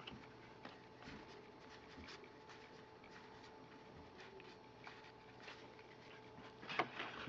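Faint rustling and soft clicks of baseball cards being handled and flipped one by one, over a faint steady hum, with a louder rustle near the end.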